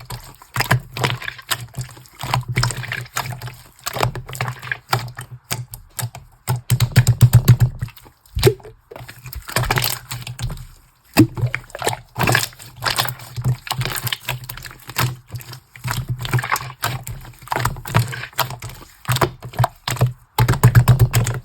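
Slime being squeezed, stretched and poked by hand: dense, wet clicking and popping as air pockets burst, with short bursts of low squelching.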